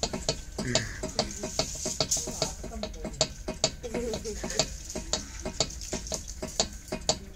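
Irregular light clicks and crackles, about two or three a second, from a toddler's hands fiddling with the woven plastic webbing of a charpai. A faint vocal sound comes about four seconds in.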